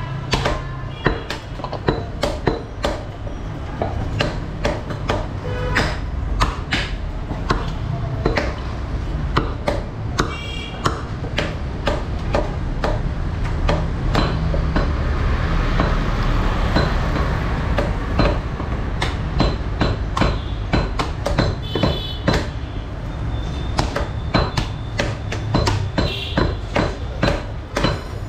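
Butcher's cleaver chopping beef on a wooden tree-trunk chopping block: a long run of heavy chops at an irregular pace, with occasional metallic pings.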